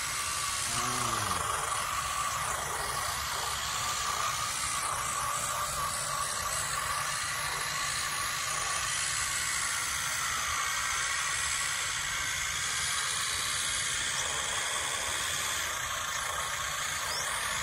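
Radio-controlled scale tractor running with its loudspeaker sound module playing a steady simulated diesel engine, with a constant hum and hiss.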